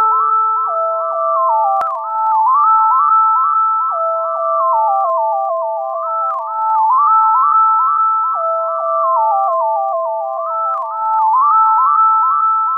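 Electronic ambient music: pure, clear synth tones sliding smoothly between notes in a repeating, looping pattern, with no drums. A lower held note stops about two seconds in.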